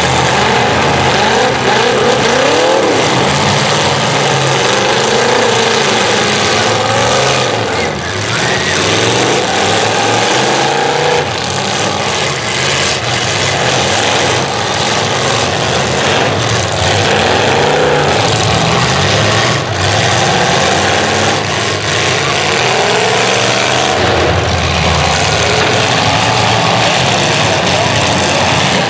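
Several demolition derby car engines revving hard, their pitch rising and falling as the cars reverse and ram one another. A few sharp bangs of car-to-car impacts stand out.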